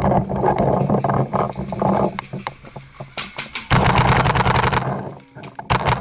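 Paintball markers firing in rapid strings of quick cracks. The densest, loudest string comes a little past halfway, and another starts near the end.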